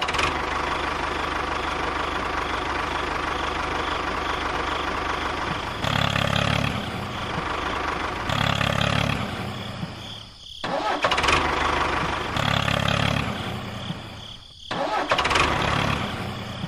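Tractor engine running steadily, rising in several short surges of revving. The sound breaks off briefly twice.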